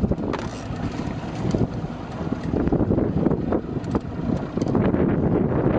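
Wind rumbling on the microphone aboard a small inflatable boat at sea, with scattered short knocks and taps.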